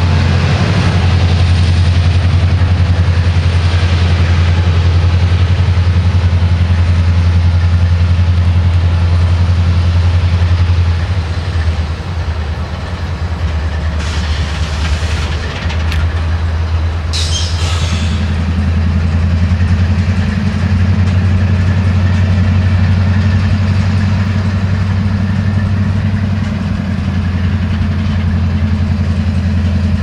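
CSX diesel-electric locomotives running with a steady low engine drone as they move a string of covered hoppers slowly through the yard. Two short hisses come around the middle.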